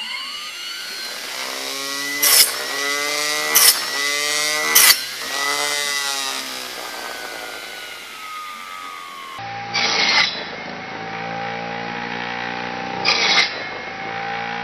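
A 1000KV brushless drone motor spins a small circular saw blade with a high whine. The whine rises as it spins up and later falls off a little. Five brief, loud rasps come as thin wooden sticks are fed through and cut.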